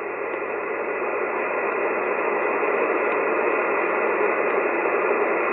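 Band noise from a Kenwood R-5000 shortwave receiver in upper-sideband mode on the 20-metre band: a steady hiss, narrow and muffled by the receiver's sideband filter, with no station audible. It grows louder over the first couple of seconds, then holds steady.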